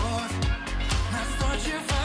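Up-tempo pop dance music with a steady, even beat and a strong bass line.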